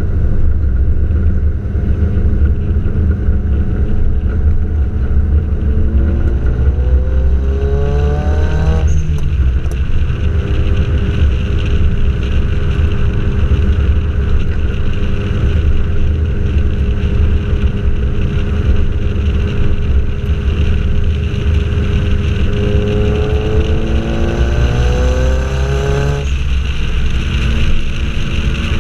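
Car driving at speed heard from a microphone outside on the car: heavy wind buffeting on the microphone throughout, over the engine. Twice the engine rises steadily in pitch as the car accelerates, and each rise ends in a sudden drop in pitch at a gear change.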